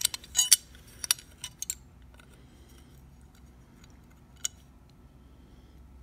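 Sharp metallic clicks and clinks of a steel bit key being handled in an antique mortise lock. A quick run of clicks comes in the first two seconds, and a single click follows a couple of seconds later.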